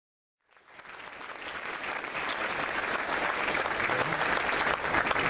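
Audience applauding, fading in about half a second in and growing steadily louder.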